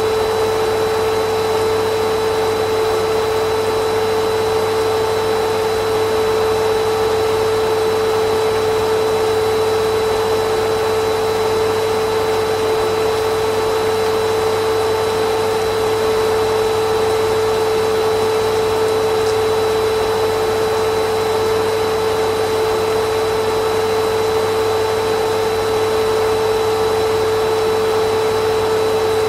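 Vacuum cleaner running steadily: a constant hum over a rush of air, with no change in pitch or level.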